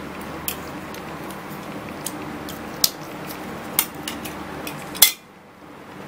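Hard plastic clicks and taps as a Gillette Fusion ProGlide razor is lifted and handled in its clear plastic holder: about seven sharp, separate clicks, the loudest about five seconds in, over a steady low hum.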